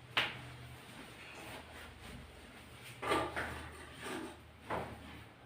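A sharp click just after the start, then a few softer knocks and shuffles around three to five seconds in, from a patient being moved and adjusted on a chiropractic treatment table.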